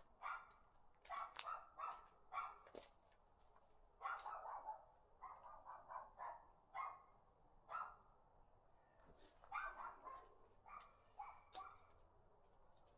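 Faint animal calls: short, pitched yaps repeated in quick runs of several at a time.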